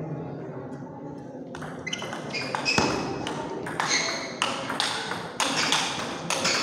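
Table tennis rally: the celluloid ball clicking sharply off the paddles and the table, about two to three hits a second, starting about a second and a half in.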